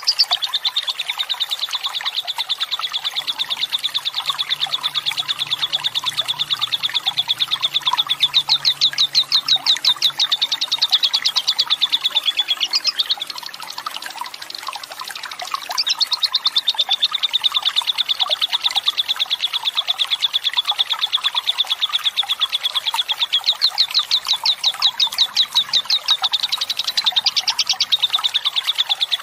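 Lovebird giving its long, unbroken 'ngekek' chatter: a very rapid, high-pitched trill that eases off for a few seconds about halfway through before resuming, with running water faintly beneath.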